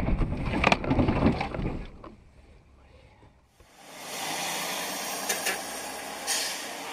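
A car running off the road into bushes and a wooden fence: knocks and cracking of branches and wood for about two seconds, then dying away. After a short lull, a steady hiss of tyres on a wet road, heard from inside a moving car.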